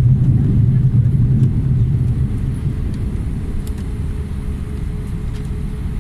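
Jet airliner cabin noise during the landing rollout: a low rumble of engines and wheels on the runway that steadily fades as the plane slows down.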